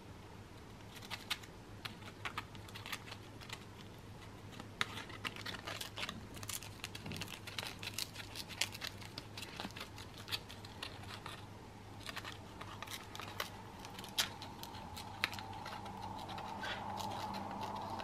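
Green-cheeked conure biting and tearing at a twisted printer-paper treat parcel: irregular crinkling, crackling and ripping of the paper.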